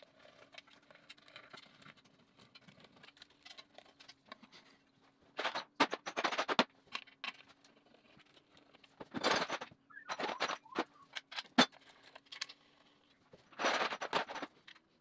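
Hand ratchet on a long extension clicking in several short, quick bursts as the oil pan bolts are run down, with a faint steady hum underneath.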